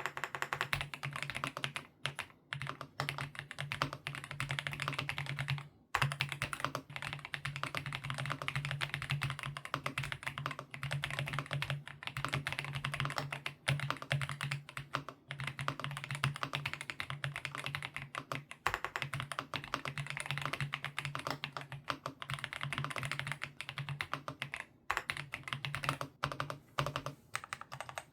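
Fast, continuous typing on a mechanical keyboard fitted with GGBOY Matcha Green linear switches (40 g, POM and PA66 parts), a dense run of key clacks that stops briefly a few times.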